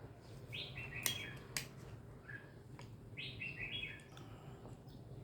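A small bird chirping in short stepped phrases, twice, about three seconds apart, over a low steady hum, with a few sharp clicks.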